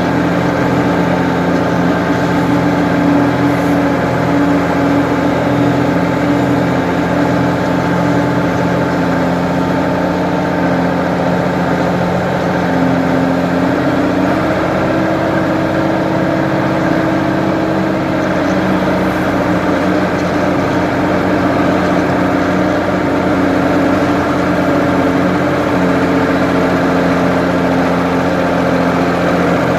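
Ford 550 backhoe's diesel engine running steadily. Its pitch steps up slightly about halfway through.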